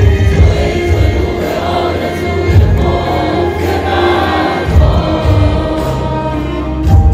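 Large concert audience singing along together with a live ensemble playing Persian traditional music.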